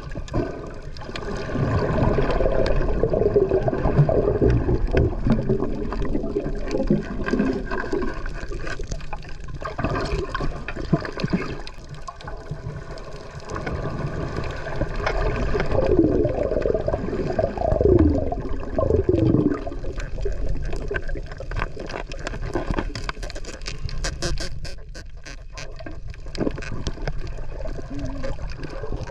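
Water gurgling and bubbling as heard underwater, in wavering swells, with a run of rapid clicks a little over three quarters of the way through.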